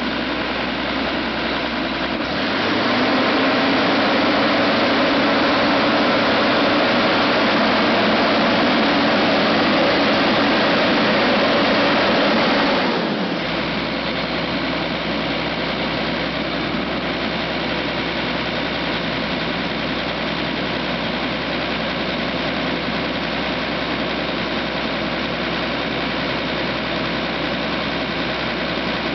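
Turbocharged 12.5L John Deere inline-six diesel in a pea harvester revving up from idle about two seconds in and holding at wide open throttle for about ten seconds, then dropping back to a steady idle for the rest.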